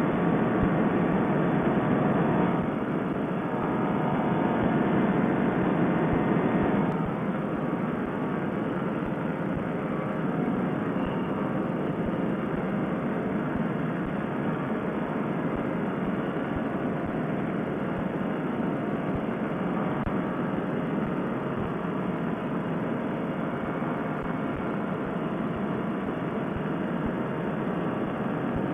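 A paramotor trike's two-stroke engine and propeller run steadily, with wind rush. The sound drops a step about two and a half seconds in and again about seven seconds in, as the throttle comes back for the descent to the grass landing strip.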